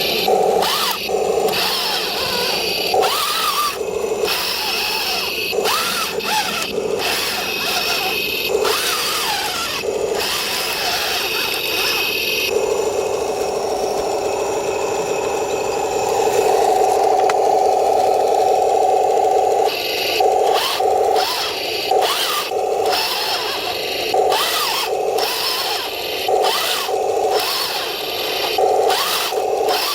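Electric drive of an RC M26 Pershing tank with metal tracks, running with a steady whine from the motors and gearbox. The metal track links clatter over it, with many short clicks and brief cut-outs. In the middle stretch only the steady whine is heard, then the clatter returns.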